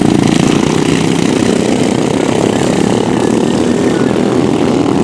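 Engines of several racing ride-on lawn mowers running hard as they pass on the course, a steady, loud engine noise.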